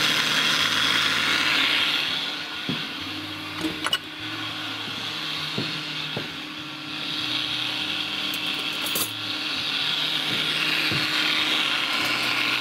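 Countertop blender running steadily, puréeing a papaya, ginger and ice smoothie. The motor noise drops for a few seconds in the middle and then rises again, with a couple of brief clicks.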